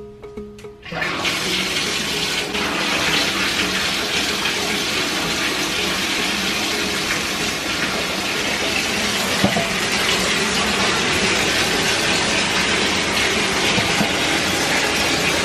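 Bathtub tap turned on about a second in, water gushing steadily into the tub to fill it.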